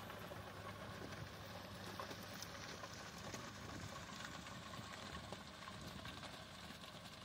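Sonalika Worldtrac 75 Rx tractor's diesel engine running steadily under load as it pulls a Maschio rotavator. The rotavator's blades churn dry soil, with scattered small knocks over the low drone.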